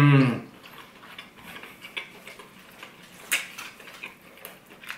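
A voiced "mmm" of enjoyment ends in the first half second. Then a few light clicks and taps of eating from a ceramic ramen bowl with chopsticks and spoon, the sharpest a little over three seconds in.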